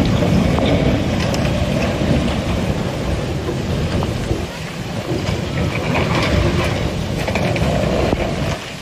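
Loud, steady rushing of floodwater forcing its way through, a dense low rumble with a slight dip about four and a half seconds in.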